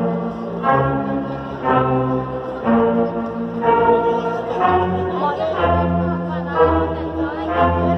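Slow music with long held notes, a new one entering about once a second, played loud.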